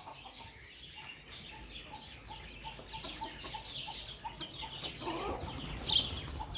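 A flock of chickens clucking as they feed, short low clucks about three a second, with high chirping over them. A louder burst of clucking comes about five seconds in.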